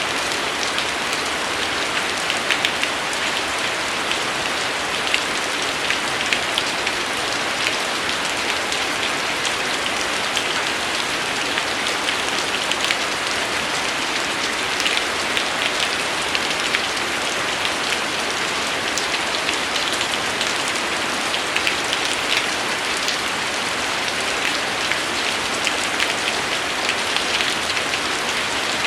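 Steady rain falling on a hard surface: an even hiss with many separate drop strikes ticking through it, unchanging throughout.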